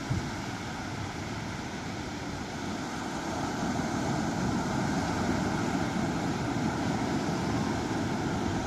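Sea surf: a steady wash of waves breaking, swelling a little louder a few seconds in.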